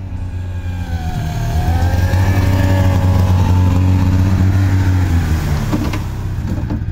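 Lynx snowmobile engine driving past, pulling a sled of firewood. It rises in pitch and gets louder as it approaches, is loudest in the middle, then drops in pitch as it moves away.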